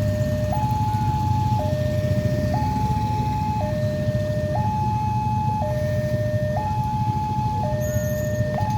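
Railway level-crossing warning alarm sounding a steady two-tone signal, switching between a lower and a higher tone about once a second, over a continuous low rumble.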